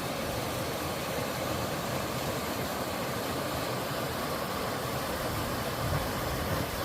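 Water from a two-tiered sliding waterfall rushing over rock in a mountain stream: a steady, even rush of falling water with no change.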